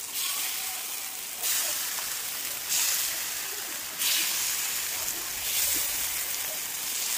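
Rava appe batter sizzling in hot oil in the cavities of an appe (paniyaram) pan. The sizzle surges four times as each new spoonful of batter drops in, then goes on steadily.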